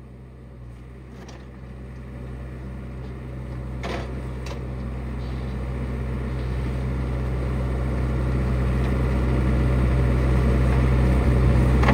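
John Deere 85G compact excavator's diesel engine running with a steady low hum that grows steadily louder as the bucket digs into a root wad and brush pile under hydraulic load, with a few light knocks about four seconds in.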